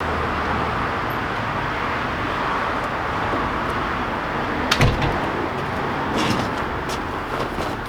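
A car door shutting with one loud thud about five seconds in, over a steady rush of background noise.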